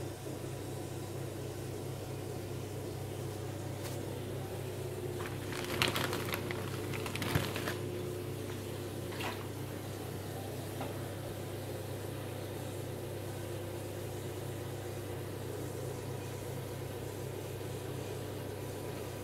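Steady low hum of a large aquarium's pumps and aeration, with water bubbling. A few brief splashes come about six and seven seconds in.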